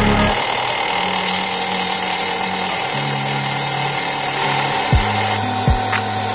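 Bench belt sander running with a cast epoxy resin piece pressed flat on its belt: a steady grinding hiss that grows stronger about a second in. Background music with a bass line and a few drum beats plays over it.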